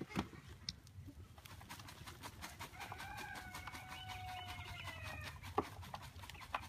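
A chicken gives one long call, lasting about three seconds and falling slightly in pitch, near the middle. Under it is a light scattered rattle of compost being worked in a hanging wooden-framed screen sifter, with a sharp knock near the end.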